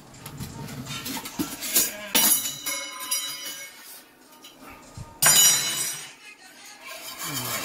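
Kitchenware clinking and clattering: two sudden sharp clinks with a ringing tail, about two and five seconds in.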